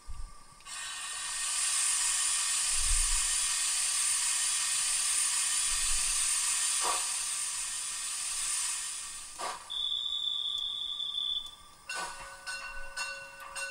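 Zimo MS sound decoder playing its locomotive sound project through a small speaker: a long hiss lasting about nine seconds, then a high steady tone for about two seconds, then a few sharp clicks over several steady tones.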